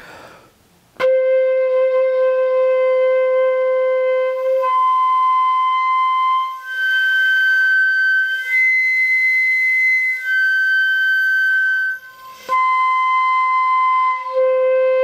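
Bamboo pífano (Brazilian transverse fife) with all holes closed, overblown up its overtone series by the lips alone: a low note held about three and a half seconds, then its octave, the fifth above that, and the next octave up. It then steps back down the same notes to the low note. This is an embouchure exercise for moving cleanly between octaves without changing the fingering.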